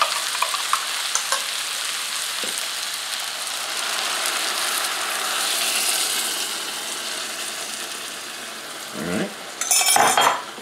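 Meatballs and vegetables sizzling in a hot cast-iron skillet. The sizzle swells about midway as tomato sauce is poured over them, then settles. There is a knock near the end.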